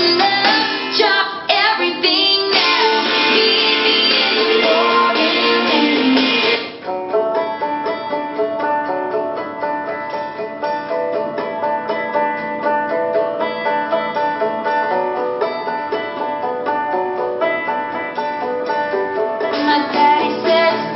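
Instrumental music with plucked strings playing through a small portable Bluetooth speaker. A full, dense passage gives way about a third of the way in to a lighter run of quick picked notes.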